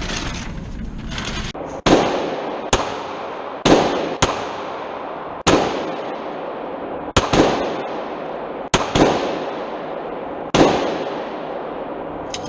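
Pistol shots, about ten, fired at an uneven pace, some in quick pairs, each ringing out with a long echo.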